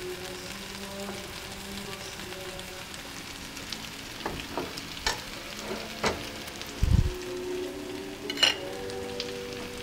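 Zucchini kookoo (Persian omelet) sizzling in oil in a frying pan over a gas flame, browning on its second side. A slotted spatula clicks and scrapes against the pan a few times in the middle, with a dull thump about seven seconds in and another sharp click soon after.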